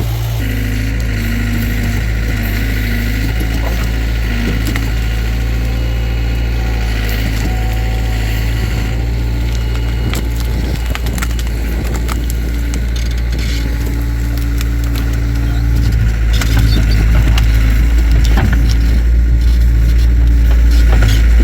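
Takeuchi TL26 skid steer's engine running steadily under work, with scattered cracks and snaps of wood and brush breaking as the machine digs and pushes through it. The engine gets louder about three-quarters of the way in.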